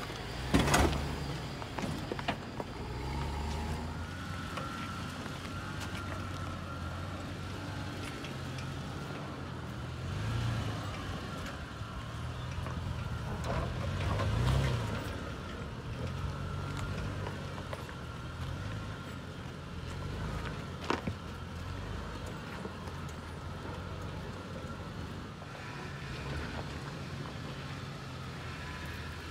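Lifted SUV engines crawling over a rocky trail at low speed, the revs rising and falling as the throttle is worked over the rocks. A few sharp knocks sound as the vehicles bump over rock, one about a second in and another about two-thirds through.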